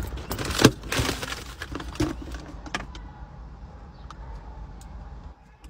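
Clicks, knocks and rattles of things being handled inside a car, over a steady low rumble that drops away suddenly about five seconds in.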